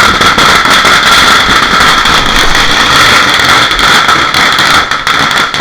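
A lit Diwali firework burning: a loud, continuous hissing roar thick with rapid crackles, which starts to fade out right at the end.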